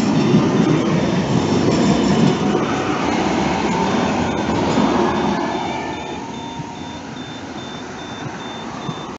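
Articulated tram passing close by: rumble and grind of steel wheels on the rails and the running gear, loudest for the first five seconds and fading after about six seconds as it draws away. A high electronic beep repeats a few times a second throughout.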